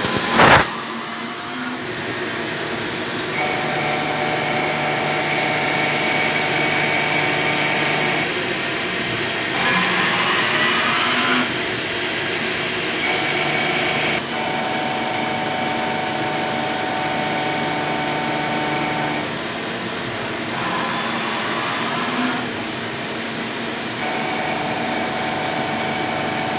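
CNC milling machine running: a steady machine whine with tones that switch on and off every few seconds, and two stretches of louder hissing about ten and twenty-one seconds in. A sharp knock about half a second in.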